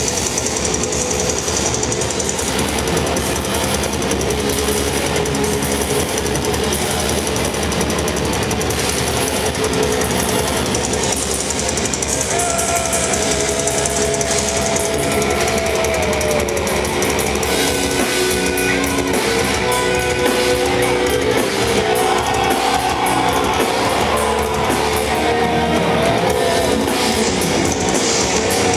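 Death metal band playing live, heard from within the crowd: distorted electric guitars and a drum kit in a dense, steady wall of sound, with a held melody line rising above it through the middle.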